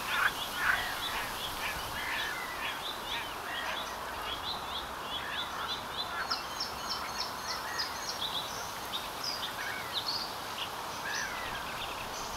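Several birds calling at once: a busy mix of short chirps and trills, with a quick run of high notes about six seconds in, over a steady background hiss.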